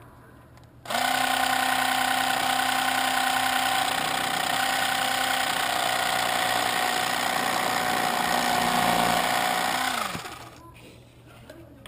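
Small electric motor of a Great Planes hinge slotting tool running while its blade cuts a hinge slot into the edge of a wooden sheet. It starts suddenly about a second in, runs at a steady pitch, and winds down with a falling pitch near the end.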